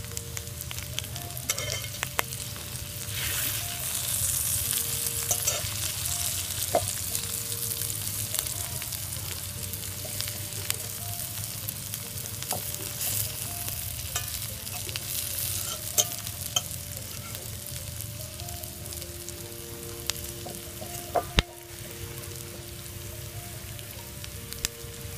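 Wild mushrooms sizzling and frying in oil in a pan, with a fork clicking and scraping against the pan as they are turned. The sizzle swells about three seconds in and eases off through the second half.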